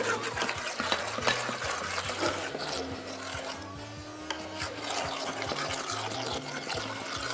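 Stick blender running steadily in a steel pot, puréeing cooked broccoli.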